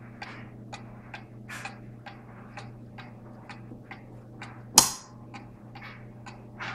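Ansonia 'Buffalo' kitchen mantel clock from about 1895, its pendulum movement ticking steadily at roughly three ticks a second. A single louder knock comes about five seconds in.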